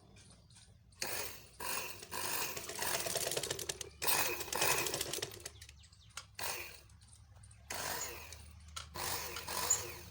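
Electric sewing machine run in several short bursts of a second or two on the foot pedal, its motor whirring with a fast ticking of the mechanism. Its motor sparks and does not drive the machine at proper speed, which the repairer puts down to a worn-out, damaged drive belt.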